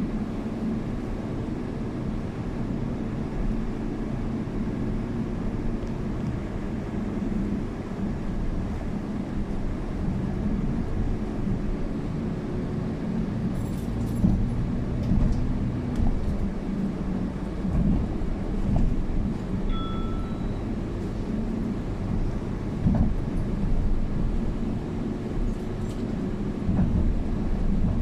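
City bus running between stops, heard from inside the cabin: a steady low rumble and drone of the drive and road, with occasional knocks and rattles.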